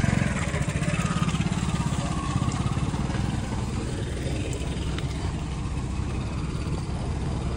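Heavy diesel engine of earthmoving machinery idling steadily with an even low throb, a little louder in the first second or so.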